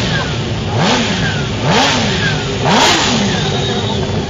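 Motorcycle engine revved in quick throttle blips, about one a second, each rising and dropping back, three or four times. Near the end it settles back to idle.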